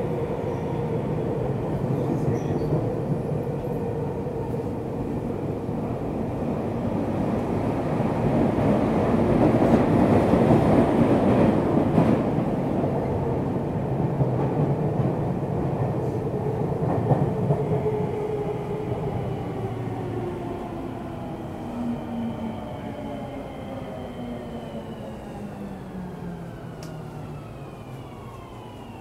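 Running sound inside a Tokyu 3000 series electric train: loud rumble of wheels on rail, loudest about ten seconds in. From about seventeen seconds the traction-motor whine falls steadily in pitch and the noise dies down as the train slows under braking.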